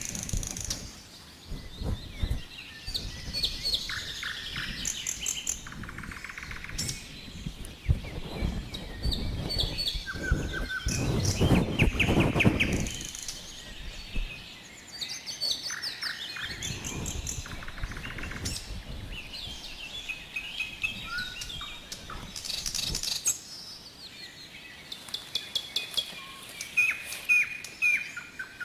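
Small songbirds chirping and trilling in many short, quick calls. A low rumbling noise swells in about eleven seconds in and fades by about fourteen.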